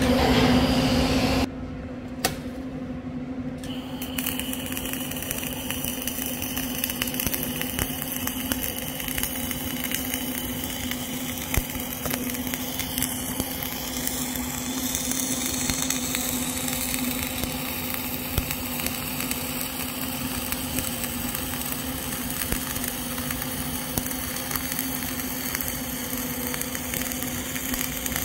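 Flux-cored arc welding with CO2 shielding: the arc hisses and crackles steadily as the 5th pass of a horizontal (2G) groove weld is run, starting about four seconds in. Before it, a louder clatter cuts off about a second and a half in.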